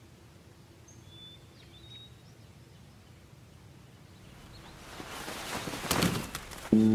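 Faint outdoor ambience with a few short bird chirps, then from about four and a half seconds in a growing rustle of cloth with a few sharp clicks, loudest about six seconds in, as army uniform jackets fall onto grass beside a wicker basket. Music with sustained chords starts just at the end.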